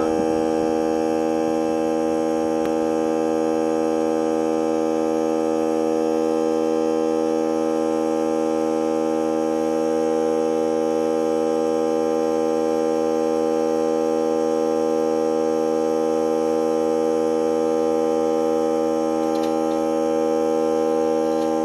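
Portable air compressor running steadily with an even, unchanging hum as it pumps a tire back up from flat after its valve stem core was replaced.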